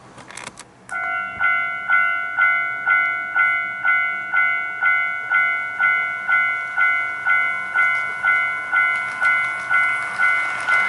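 Model railway level-crossing warning device ringing its alarm bell, an even ding-ding at about two strokes a second, starting about a second in after a few sharp clicks.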